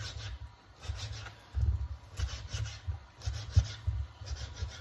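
Kitchen knife cutting raw turkey breast into small pieces on a plastic cutting board: repeated scraping strokes, roughly two a second, each with a dull knock of the blade on the board.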